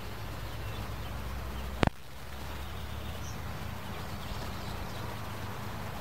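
Outdoor garden background: a steady low rumble with a few faint bird chirps, and a single sharp knock about two seconds in.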